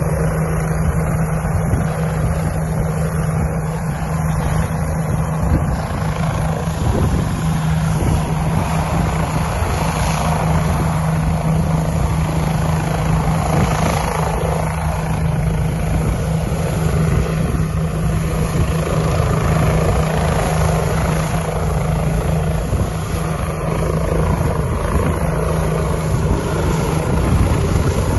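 Bell 429 twin-turbine helicopter running, a loud, steady drone of rotors and engines with a constant low hum.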